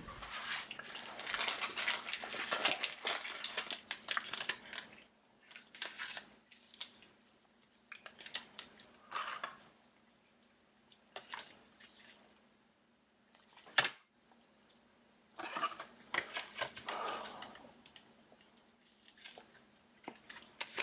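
Trading cards and their packaging being handled, with bursts of rustling, crinkling and scratching. The busiest stretches come at the start and again about 15 seconds in, and there is one sharp click about 14 seconds in.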